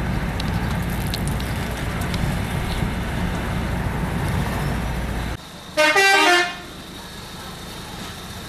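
A car's steady low road and engine rumble, heard from inside the cabin while driving slowly. It cuts off suddenly about five seconds in, and soon after comes a single loud pitched sound lasting under a second.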